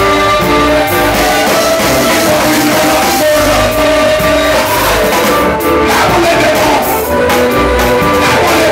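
Live Christian praise-band music: a Casio electronic keyboard playing held notes over bass guitar and drum kit, with voices singing along.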